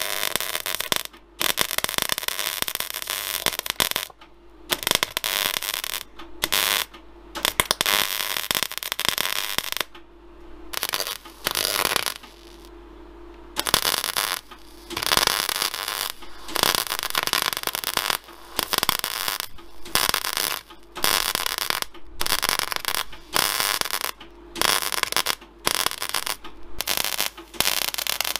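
MIG welder arc crackling on a steel axle casing in stop-start bursts of one to a few seconds, with a steady hum in the pauses. The welder is not welding nicely, which the welder puts down to the MIG needing a new core.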